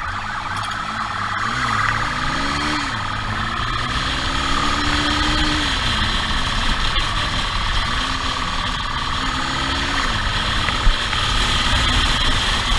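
Motorcycle engine at speed, its pitch rising and falling several times as the rider accelerates and backs off, over constant road and wind noise.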